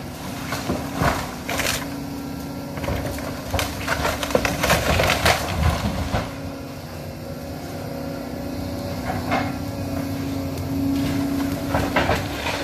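Volvo excavator tearing into a wood-framed house: timber cracking and splintering and debris crunching, over the steady run of the excavator's engine and hydraulics. The cracking is densest in the first half, then eases, with a few more snaps near the end.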